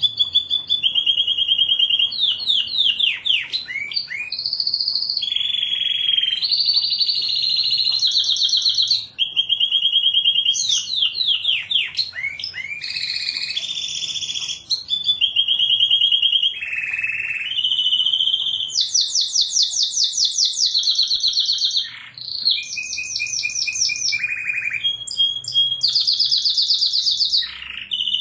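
Canary singing a continuous song of rapid trills. Each phrase repeats one note quickly for a second or two before switching to a new one, some held at one pitch and some sweeping downward.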